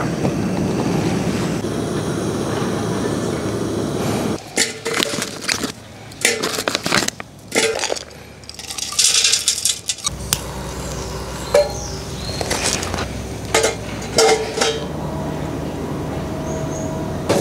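Metal cookware and utensils clinking and knocking, in several short runs of sharp clinks over a steady background hiss.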